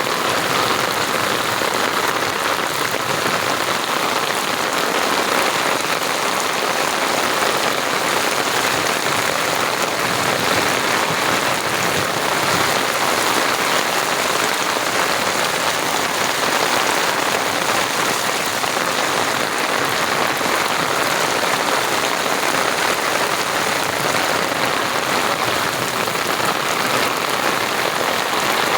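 Steady heavy rain falling and pattering on surfaces, an even dense hiss with no let-up.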